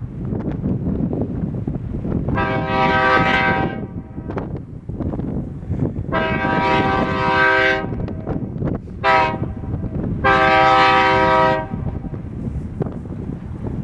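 Virginia & Truckee tourist train's locomotive sounding four blasts, long, long, short, long: the standard signal for a grade crossing. Each blast is a rich chord-like tone, over a steady rumble of wind on the microphone.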